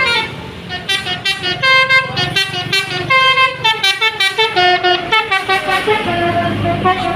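Bus telolet horn, a Basuri multi-tone horn, playing a quick tune of short stepped notes that jump up and down in pitch, starting about a second in after a brief lull.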